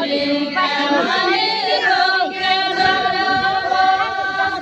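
A group of women singing a folk dance song together, unaccompanied. The line settles into long held notes in the second half.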